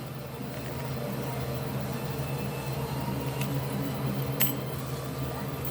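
Steady low hum of background noise, with a faint click about four and a half seconds in.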